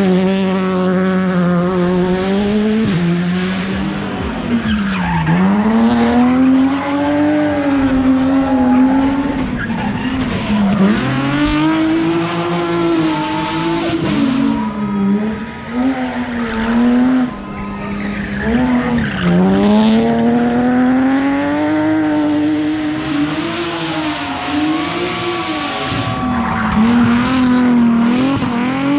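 Rally cars passing one after another at racing speed, their engines revving hard, the pitch climbing and dropping every few seconds through braking, gear changes and acceleration out of tight corners, with tyre squeal at times.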